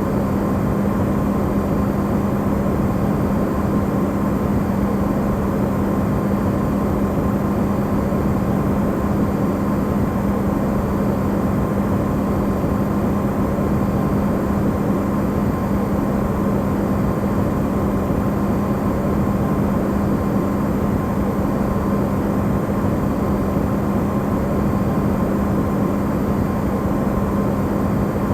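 Electrolux refrigerator running, recorded amplified: a steady, unbroken drone of even noise with a strong low hum and a fainter, higher steady tone.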